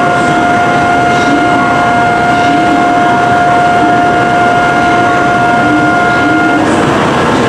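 Station platform departure signal: a single steady electronic tone held for several seconds, cutting off about six and a half seconds in, over general platform noise as the train is about to leave.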